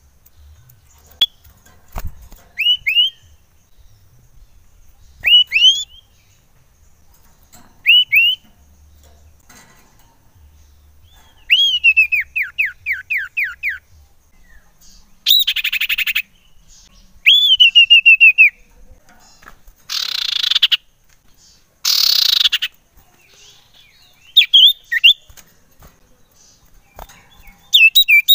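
Common iora singing: short rising whistled notes in pairs, a quick run of falling whistles, and three harsh rasping calls of about a second each, the loudest sounds in the song.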